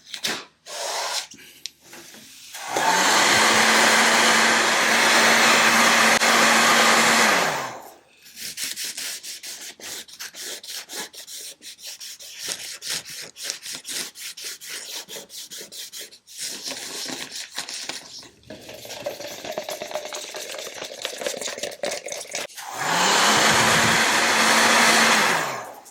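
Small electric power tool motor spinning up, running steadily for about four seconds and winding down, then again near the end for about two seconds; in between, a long run of sharp scraping and clicking sounds.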